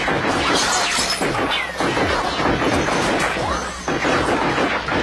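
Action-film soundtrack: glass shattering and crashing impacts, with film music underneath.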